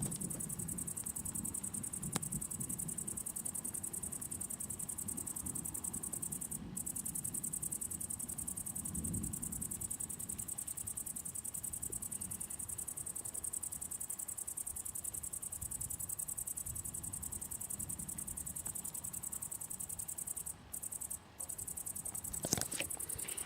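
Crickets keep up a steady, high chirring that stops briefly a few times. Under it runs a low, uneven rumble of distant thunder that swells about nine seconds in. A sharp click comes near the end.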